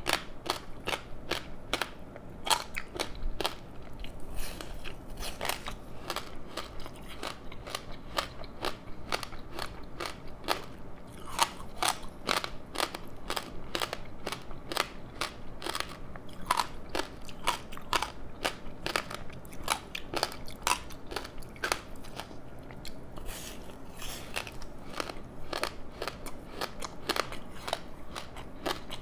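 A person chewing a rice snack wrapped in crispy seaweed: an irregular, steady run of crunches and crackles, several a second.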